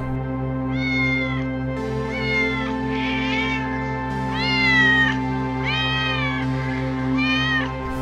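A domestic cat meowing six times, about a second apart, each meow a drawn-out call that rises and then falls in pitch, over steady background music.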